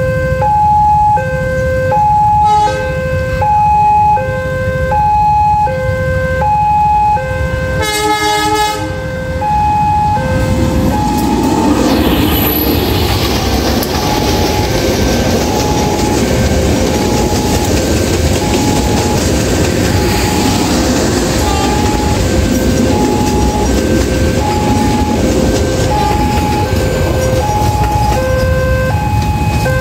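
A railway level-crossing alarm sounds a two-tone high-low chime that repeats steadily. A short locomotive horn blast comes about 8 seconds in. From about 10 seconds a diesel-hauled passenger train passes close by with a loud, even rumble of wheels on rails, and the crossing alarm carries on under it.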